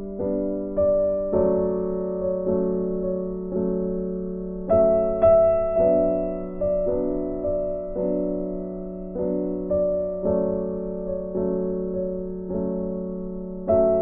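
Background music: a gentle piano tune on a keyboard, notes struck about twice a second and left to fade.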